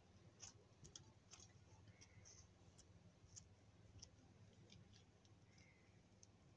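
Faint, irregular clicks and light scrapes of a small plastic spoon against the plastic cup as it digs through chocolate cream, about ten ticks over several seconds.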